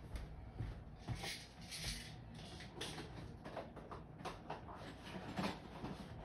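Faint, scattered rustling and a few light knocks and clicks: someone rummaging for something out of view.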